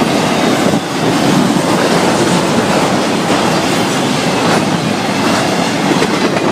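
Florida East Coast Railway freight train rolling past at speed, a steady loud rumble of cars on the rails with repeated wheel clicks over rail joints.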